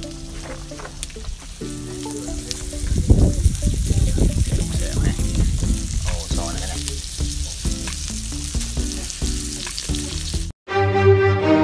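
Food sizzling and spitting in hot oil, with faint music underneath. It cuts off sharply near the end and bowed-string music begins.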